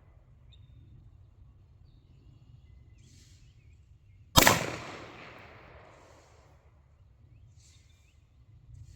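A single gunshot about four and a half seconds in, its report trailing off over a second or more.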